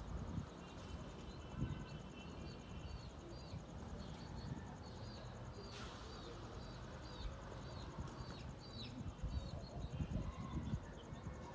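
A bird calling over and over in short, high hooked notes, about two a second, over a low rumbling background noise.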